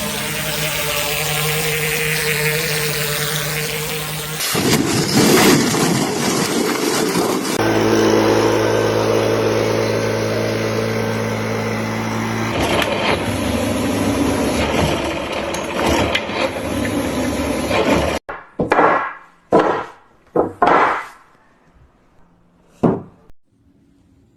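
Machinery engines running steadily, the sound changing abruptly several times, then five or six short, loud separate noises in the last few seconds.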